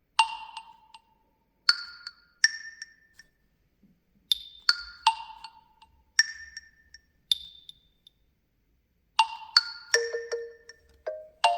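OnePlus 11 ringtone playing: a sparse, bell-like mallet melody of single struck notes that ring and fade, spaced in small groups with short pauses, turning lower and busier near the end.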